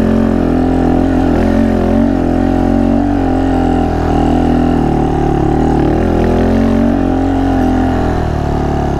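Honda Monkey 125's single-cylinder four-stroke engine running under way at low speed on a grassy trail. Its pitch rises and falls slightly with the throttle, then eases lower near the end.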